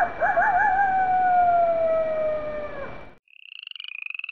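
A wolf howl sound effect: wavering at first, then held as one long, slowly falling note that cuts off about three seconds in. Then rapid pulsing trills begin.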